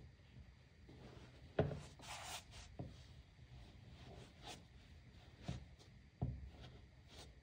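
Vans Old Skool canvas sneakers knocking and scuffing on a hard floor as a socked foot slides out of one shoe. There is a sharp knock about one and a half seconds in, followed by a brief rubbing shuffle, then softer knocks and another sharp knock near the end.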